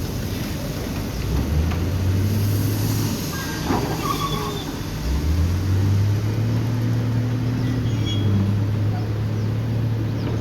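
JCB backhoe loader's diesel engine running, its pitch rising about a second and a half in, easing off, then rising again and holding.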